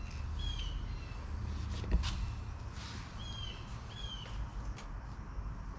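A bird chirping several times, short calls that bend down in pitch at the end, over a steady low hum; a sharp click about two seconds in is the loudest sound.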